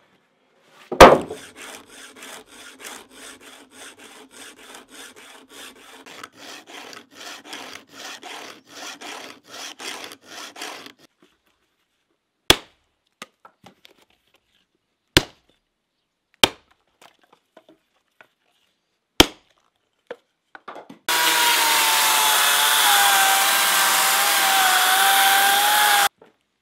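Wood being worked in a barn: a loud knock, then a run of quiet, even saw strokes, about three a second, for around ten seconds, then four sharp knocks a few seconds apart. Near the end a two-stroke chainsaw runs steadily at high revs for about five seconds and cuts off suddenly.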